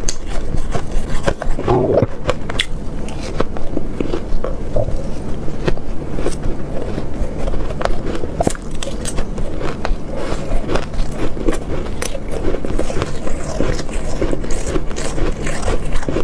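Shaved ice being bitten and chewed: a dense, irregular run of crunches and crackles.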